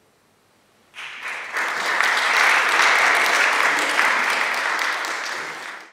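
Audience applauding, starting suddenly about a second in after near silence, then cutting off abruptly near the end.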